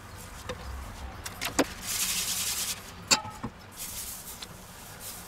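A few sharp clicks and knocks of kitchen utensils against a non-stick frying pan, with a brief hiss about two seconds in as a brush sweeps batter across the hot pan for a spring-roll wrapper.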